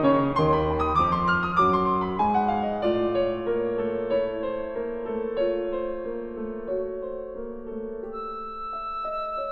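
Piano playing a passage of a classical piece for piccolo and piano: a fast descending run of notes in the first few seconds that settles into held chords, growing softer toward the end.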